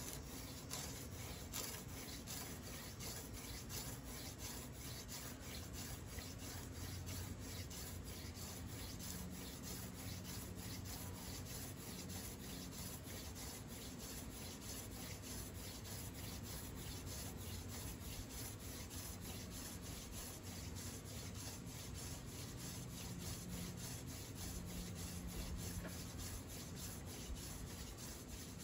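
Hand drill fire-by-friction: a wooden spindle spun back and forth between the palms, grinding into a fireboard cut from a 2x6 board to build up an ember. A steady dry rasping of wood on wood, in rapid, even strokes.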